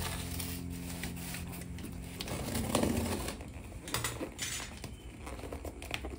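Light clinks and knocks of kitchenware being handled, a few separate taps spread over the middle and end, as a held music note fades out in the first two seconds.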